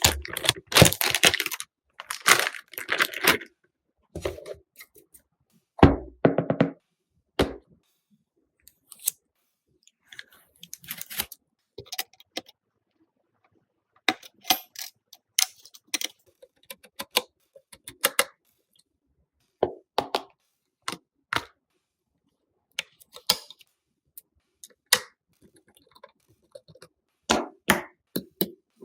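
Irregular short clicks, taps and knocks of computer parts being handled and fitted together, with silent gaps between them; the sounds are denser for the first few seconds.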